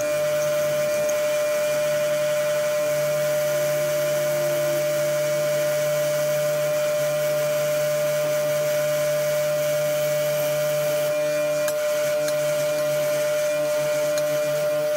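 Bench grinder running steadily with a wire wheel, brushing leftover forge scale off a forged steel railroad-spike steak turner to buff it: a constant motor hum under a steady hissing scrub of the wire bristles.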